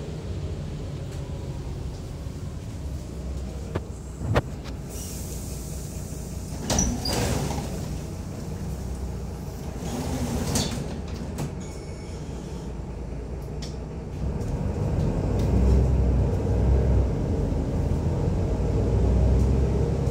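Rumble of a city bus heard from inside the passenger cabin. A few sharp clunks and short hisses come between about four and thirteen seconds in. The low rumble grows louder over the last several seconds.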